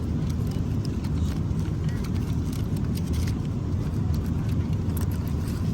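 Steady low rumble of a moving vehicle heard from inside its cabin, with faint scattered clicks over it.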